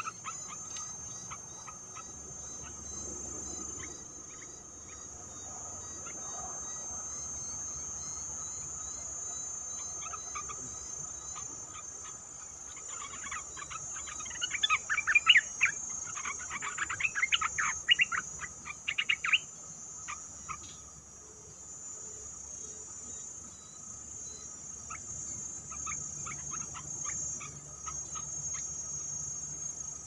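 Bulbul calling, a rapid run of short chirping notes from about halfway through for some six seconds, with fainter calls near the end. Under it runs a steady high insect buzz.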